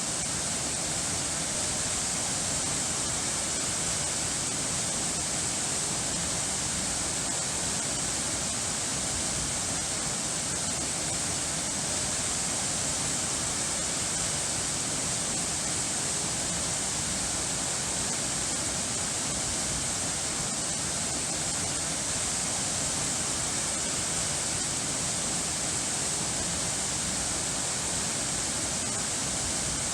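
Running water rushing steadily: an even, unbroken hiss with no changes or separate splashes.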